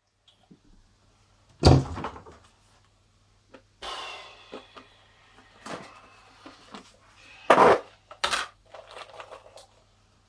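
Clear plastic tub full of sewing-thread spools being handled and rummaged through: a string of knocks and clatters, with spools rattling against the plastic and each other. The loudest knocks come near two seconds in and again about halfway through.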